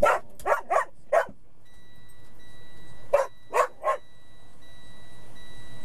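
A dog barking: four quick barks, then after a pause of about two seconds, three more.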